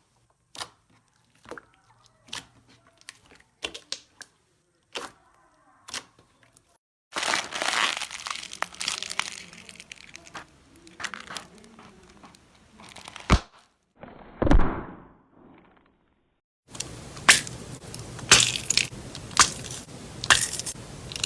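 Crunchy slime being pressed and squeezed. At first it gives sparse sharp clicks and pops. Then it crackles and crinkles for several seconds, with one sharp snap and a short thud midway, and dense crackling and crunching again near the end.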